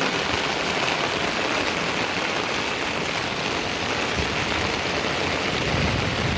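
Heavy rain pouring down in a steady, dense hiss, with rainwater running over flooded paving and ground.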